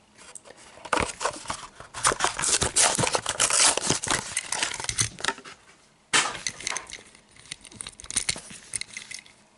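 Crinkling and crackling of a plastic blister pack on a toy car's card being handled, with scattered light clicks, in two spells with a short pause about six seconds in.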